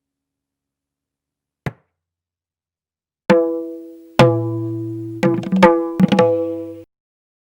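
Pakhawaj drum strokes: a single light dry tap, then two ringing strokes with a clear pitched tone, the second joined by a low sustaining bass tone, followed by a quick flurry of strokes. The ringing cuts off suddenly near the end.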